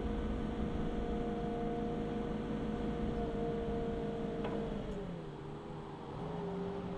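Jungheinrich TFG 425s LPG forklift running with its engine held up in revs and a steady pitched hum while the duplex mast lifts the forks. There is a click about four and a half seconds in, then the pitch falls and settles at a lower steady note.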